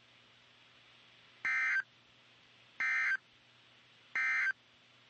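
NOAA Weather Radio EAS end-of-message code: three short, identical bursts of buzzy digital data tones, each about a third of a second long and about a second and a half apart, over a faint steady hum. The bursts signal that the warning broadcast has ended.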